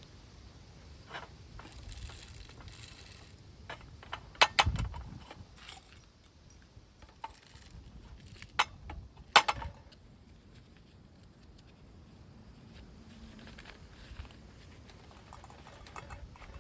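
Wind rumbling on the microphone, with a handful of sharp clinks and knocks from camp gear being handled. The loudest, with a low thump, comes about four and a half seconds in; two more come near nine seconds.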